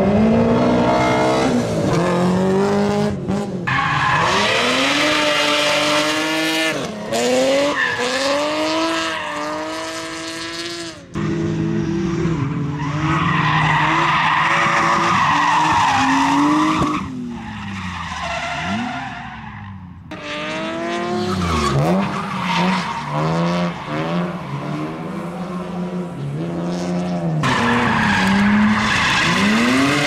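Drift cars, BMW E30 3 Series among them, sliding through a track: engines revving hard and dropping back in quick swells, with long stretches of tyre squeal from the sliding rear wheels. The sound cuts abruptly a few times from one pass to the next.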